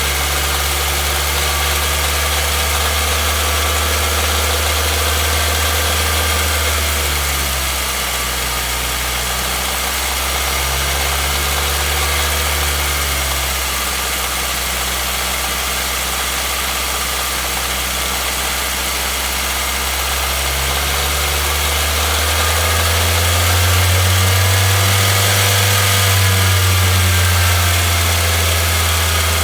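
2016 Nissan Versa's HR16DE four-cylinder engine running, its speed drifting up and down and rising for several seconds about three-quarters of the way through. This is the engine knock the owner is checking for, a known HR16DE complaint that comes at certain engine speeds.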